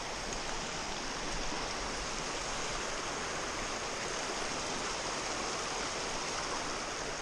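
A small brook running over rocks in a steady rush of water.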